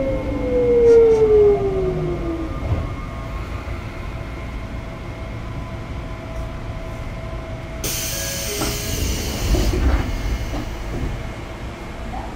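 Sotetsu 8000 series train's Hitachi GTO-VVVF inverter whining, several tones falling in pitch as the train brakes, dying away about two and a half seconds in, over a low running rumble. About eight seconds in comes a two-second hiss of compressed air, followed by a low thump.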